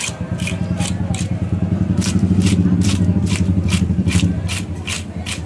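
Hand scaler scraping the scales off a large katla fish in quick repeated strokes, about three a second. Under it runs a low engine hum, loudest in the middle and fading near the end.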